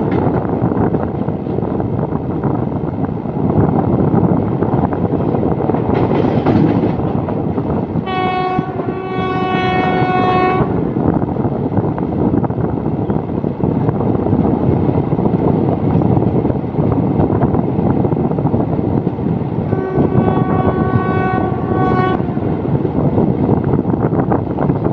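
Indian Railways passenger train running at speed, its wheels rumbling and clattering on the rails, heard from beside the coach. A train horn sounds two long blasts, one about 8 seconds in and another about 20 seconds in.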